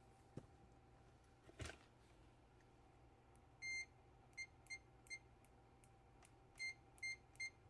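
Faint, short electronic beeps at one high pitch: a slightly longer one, then brief beeps singly and in quick runs of two or three, after two light clicks.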